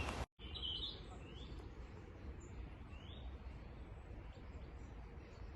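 A few short, rising bird chirps over a faint, low, steady outdoor rumble.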